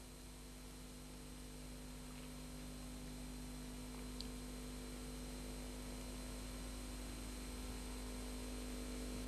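Steady electrical hum over a hiss of background noise, slowly getting louder, with one faint tick about four seconds in.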